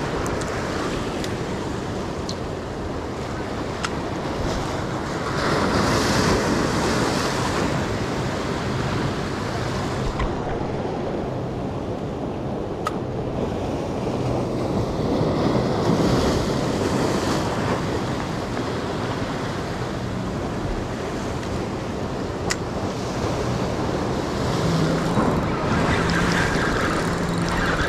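Sea surf washing against jetty rocks, a steady rush that swells in surges every several seconds, with wind buffeting the microphone.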